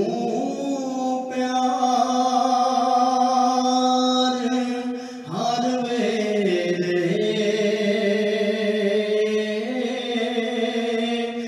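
A man singing a Punjabi naat solo, drawing each syllable out into long held notes. There are two long phrases, with a brief break for breath about five seconds in, and the second phrase opens with a rising slide.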